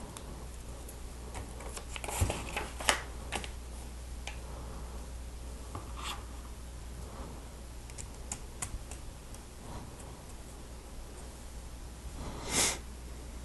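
Lego Technic pieces being handled and clicked together, with scattered sharp clicks and a louder cluster about two to three seconds in. A short rustling scrape comes near the end, over a steady low hum.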